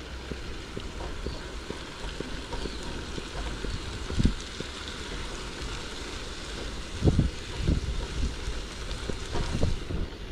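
Vegetables sizzling in a frying pan with a steady hiss, while wind buffets the microphone in a few low thumps.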